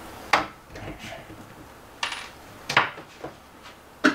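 A few separate sharp knocks and clinks of hand-held tools and hardware being handled against wooden cabinetry.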